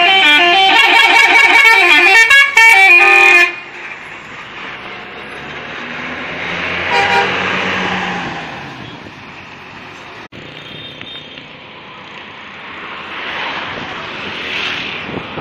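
Bus telolet horn playing a fast, loud tune of changing notes, cutting off about three and a half seconds in. Then the noise of passing traffic, with a short horn toot about halfway through.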